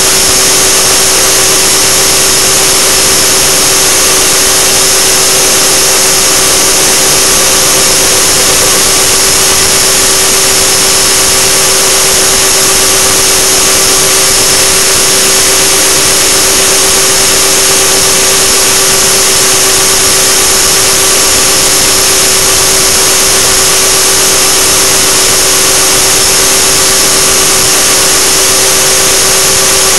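Align T-Rex 600 RC helicopter heard from a camera mounted on the helicopter: its drive and rotor give a loud, steady whine with a rushing hiss, holding one pitch throughout.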